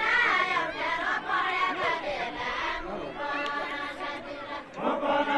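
Group of voices singing a Nepali folk song together, with long held notes.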